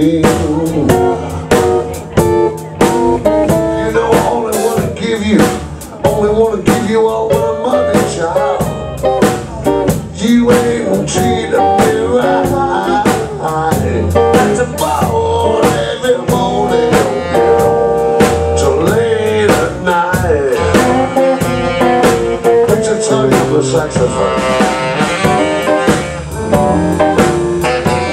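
Blues band playing live, an instrumental passage: drum kit keeping a steady beat under electric bass, electric guitar, keyboard and saxophone.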